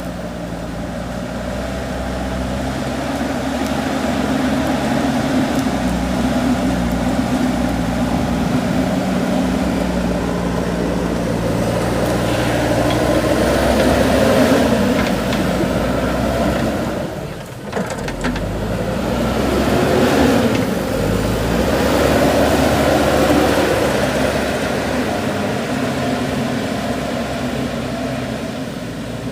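JCB 3DX backhoe loader's diesel engine running under work load, revving up and down. It swells louder about halfway through, drops off briefly, then rises again twice.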